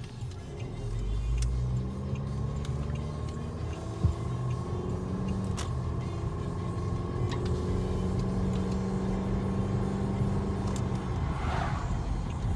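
Car engine and road rumble while driving, the engine note rising gently over the first few seconds and then holding steady.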